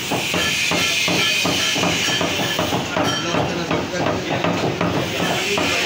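Butcher's cleaver chopping mutton on a wooden chopping block: quick repeated chops, about three a second.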